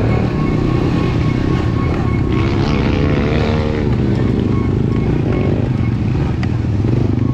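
Honda TRX90 ATV's small single-cylinder four-stroke engine running steadily, heard from a helmet-mounted camera, with the revs rising and falling once about halfway through.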